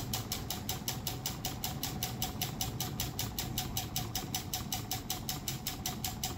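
Homemade solar-powered Stirling engine built from drink cans, running with a steady rhythmic ticking of about five to six beats a second, with a thin steady tone alongside.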